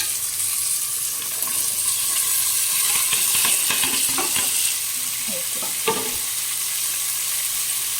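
Vegetables and onion-tomato masala sizzling in hot oil in a pan while being stirred with a spoon, with a steady hiss and a few knocks and scrapes of the spoon against the pan midway.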